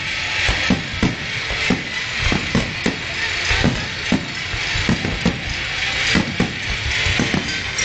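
Fireworks display heard through a phone's microphone: shells and fountains going off in quick, uneven succession, two or three bangs a second, over a steady crackling hiss.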